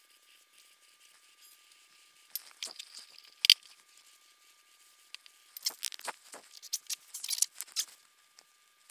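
Handling noises from cleaning a drive shaft over a plastic drain pan. There are scattered clicks and knocks, with one sharp click about three and a half seconds in, then a stretch of rustling and rubbing as a shop rag wipes the shaft.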